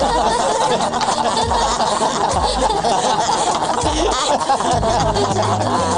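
Several young male voices laughing together without a break.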